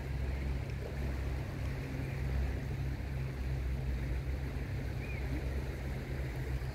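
Flood-swollen River Severn rushing past, a steady low rumble of fast-moving water.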